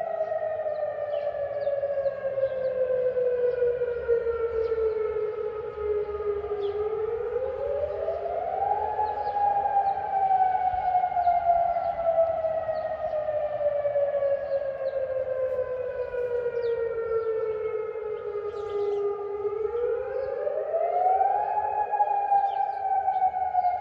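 Civil defence siren wailing, a warning signal for a curfew. Its pitch climbs over about two seconds, about 7 s and again about 19 s in, and otherwise slides slowly downward.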